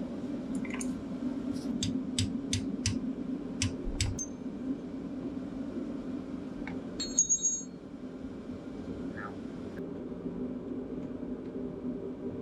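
Steel hammer striking the partly threaded-on nut of a ball joint stud on a Polaris RZR 800's front suspension, about eight sharp metallic blows in the first four seconds, driving the stud down out of the knuckle. About seven seconds in comes a single ringing metallic clink, over a steady low hum.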